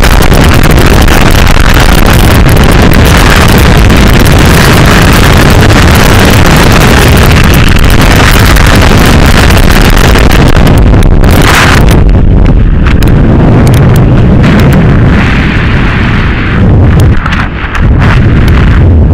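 Freefall wind rushing and buffeting a skydiver's camera microphone, very loud and overloaded, with a deep rumble under a hiss. In the last several seconds the hiss thins out and the rush drops away briefly a few times.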